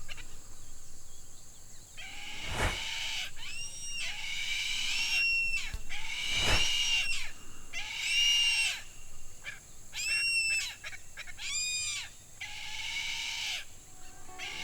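Wild tropical birds calling: a series of harsh, repeated squawks about every second or two, with a quick run of calls near the end.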